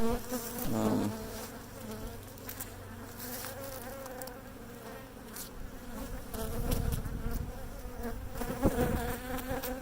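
Honeybees buzzing in a steady hum over the open brood box of a hive, with a few brief rustles of frames being handled.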